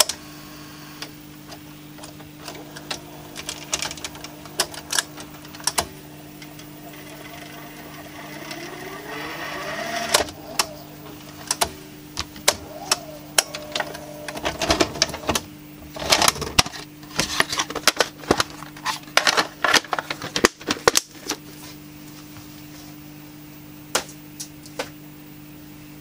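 Panasonic NV-F65 VHS recorder's tape transport rewinding: mechanism clicks, then a rising whine as the reels spin up, followed by a long run of rapid clicking and clattering as the mechanism changes mode. A steady low hum from the machine runs underneath.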